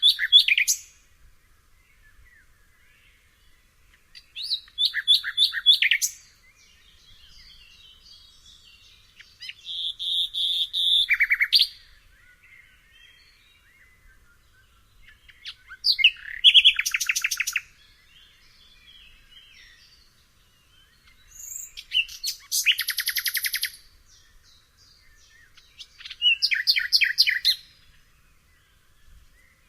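A nightingale singing: six separate, varied phrases a few seconds apart, each made of rapid repeated notes and trills, with pauses between them.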